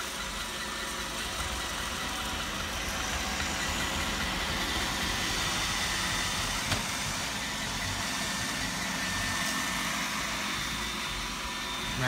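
iRobot Roomba robot vacuum running across a hardwood floor: the steady whirring hum of its vacuum motor and brushes.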